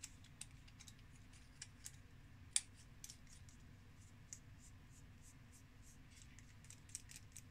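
Faint, scattered small clicks and light scrapes of the threaded metal sleeve and end cap of a W.A.S.P airsoft sniper piston being twisted together by hand. One sharper click comes about two and a half seconds in.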